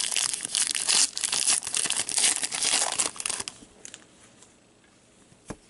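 Foil hockey-card pack wrapper crinkling and tearing as gloved hands rip it open. The crinkling stops about two-thirds of the way through, and one small click follows near the end.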